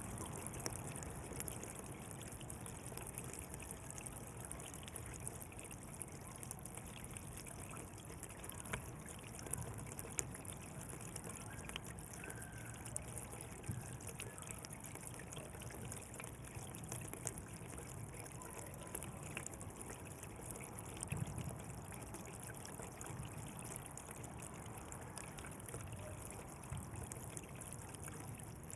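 Water flowing along a canal, a steady trickling and babbling with small splashes throughout.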